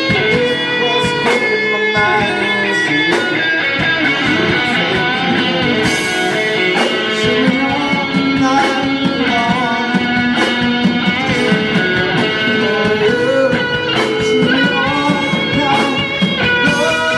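Rock music played on guitars, continuous and steady in level.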